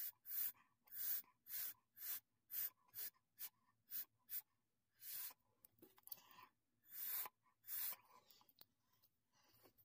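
Short airy puffs of breath blown through a straw onto wet acrylic pour paint, about two a second at first, then fewer and further apart.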